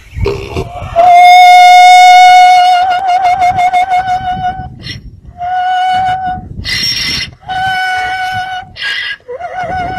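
Donkey singing in a long, high, pure note held for about four seconds with a wavering vibrato toward its end, then three shorter held notes with harsh rasping breaths between them. This is the donkey's unusual operatic-sounding call, not the usual hee-haw.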